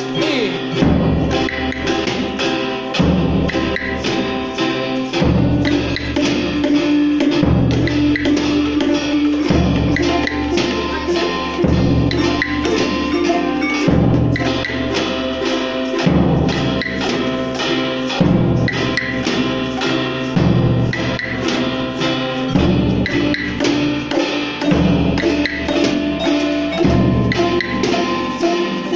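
A class ensemble of boomwhackers (tuned plastic tubes) and wooden Orff xylophones playing a song, with low notes that change about every two seconds under a steady beat.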